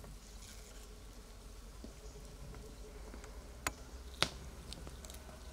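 Faint background with scattered light clicks, and two sharper taps about half a second apart a little past the middle.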